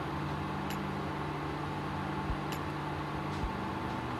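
Portable induction cooktop running under an empty frying pan: a steady hum from its cooling fan and coil, with a few faint ticks.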